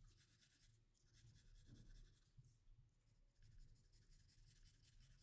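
Faint scratching of a coloured pencil shading on paper, in two spells of rapid back-and-forth strokes.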